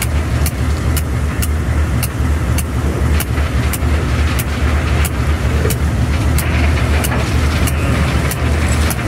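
A ballast train's hopper wagon rolling along the track, heard from on board: a steady low rumble of the running gear, with sharp clicks about twice a second.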